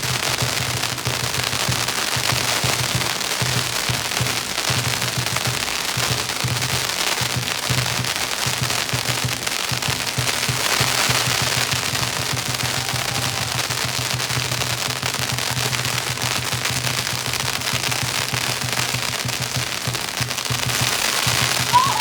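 A long string of firecrackers going off in a continuous rapid crackle of bangs, steady in loudness throughout.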